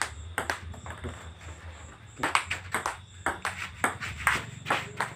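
Table tennis rally: a celluloid ball clicking off paddles and a bare board table in quick, irregular succession, with a lull of about a second early on before the strokes pick up again.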